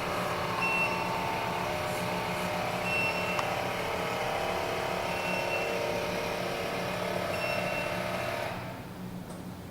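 The Glen GL 6074 kitchen chimney's shutter motor running steadily as it opens the glass shutter, with a short high beep about every two seconds. The motor stops about 8.5 seconds in, with the shutter fully open in service mode.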